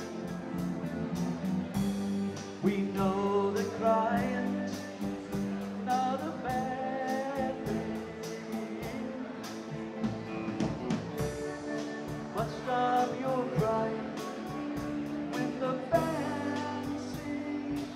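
Live rock band playing, with electric guitars, keyboard and a steady drum beat.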